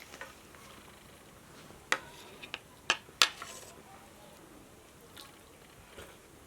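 Four sharp clinks of kitchenware knocking together over about a second and a half, the last the loudest, with a brief ring after it.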